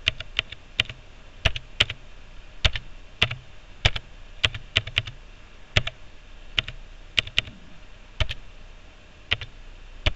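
Computer keyboard keys struck one at a time as a password is typed, sharp separate clicks at an uneven pace of about two a second with short pauses between them.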